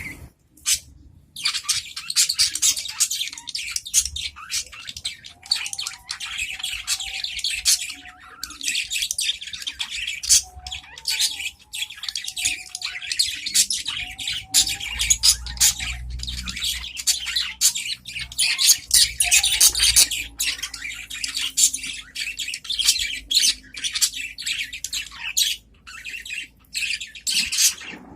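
Several adult budgerigars chattering and warbling, calling back and forth in a dense, rapid, high-pitched stream with only brief pauses, starting about a second and a half in.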